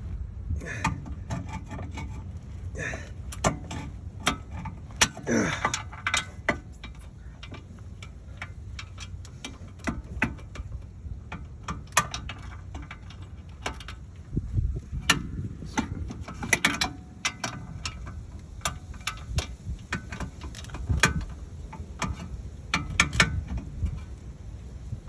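Socket ratchet clicking in short, irregular strokes, with metal tools clinking, while working a seized rear hub bolt.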